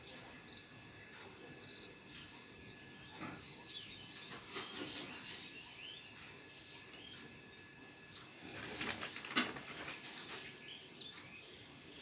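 Faint handling of a sheet of paper being shifted, with a louder rustle about nine seconds in, while birds chirp faintly in the background.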